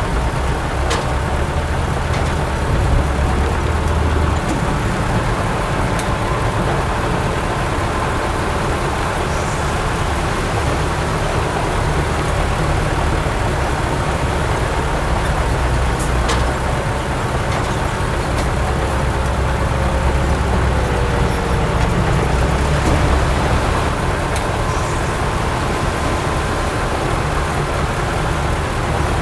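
Heavy diesel earthmoving machinery running steadily under work: a continuous low rumble, with a faint whine held throughout and a few sharp ticks.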